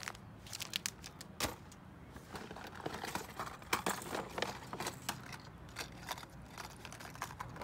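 Hands rummaging in a gift bag and handling plastic lure packaging: crinkling and rustling, with scattered light clicks and taps of a clear hard plastic lure box.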